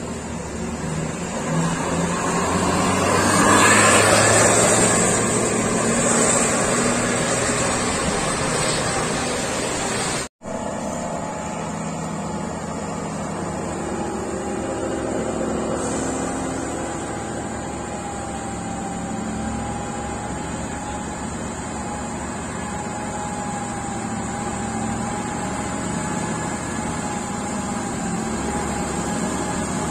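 Coach bus engine running as the bus pulls round a tight hairpin close by, loudest about four seconds in. After a sudden cut about ten seconds in, a truck's diesel engine runs steadily under load through the bend, with a faint steady whine over it.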